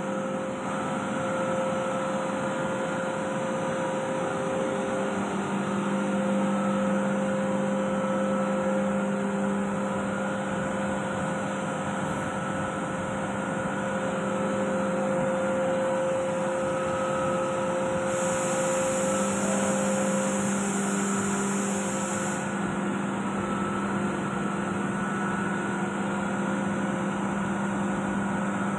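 COAIRE AS102 oil-lubricated rotary screw air compressor running: a steady machine hum with several constant tones. A high hiss joins for about four seconds in the second half.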